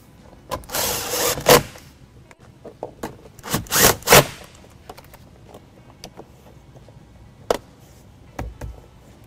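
Cordless impact driver running in two short bursts, about a second in and again around four seconds in, driving the screws of an A-pillar grab handle. Plastic trim clicks and knocks as the handle and pillar panel are seated.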